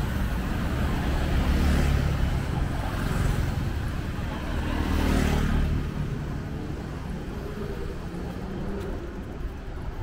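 Street traffic: cars and motorbikes driving past, with a vehicle passing close about five seconds in, then a quieter road hum.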